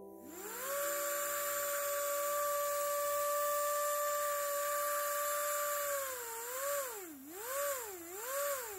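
Small brushed DC motor spinning up within half a second to a steady high whine, with brush hiss above it. After about six seconds its pitch dips and rises three times as its potentiometer-and-MOSFET speed controller is turned down and up. Near the end it winds down.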